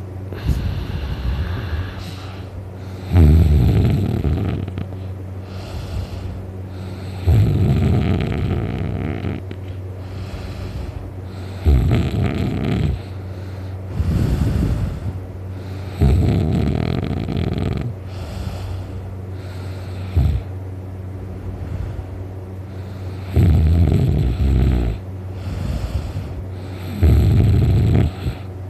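A person snoring really loudly in sleep, a deep growling snore on each in-breath, about every three to four seconds.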